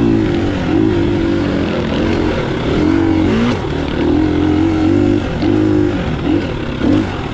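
A vehicle's engine running under way, its note rising and falling with the throttle over steady road noise.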